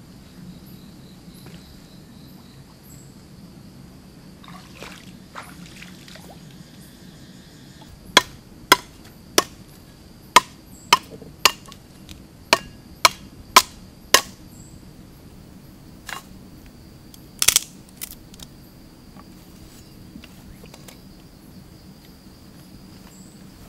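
A run of about a dozen sharp knocks, roughly two a second, then a quick double knock a few seconds later. Under them runs a steady high insect buzz.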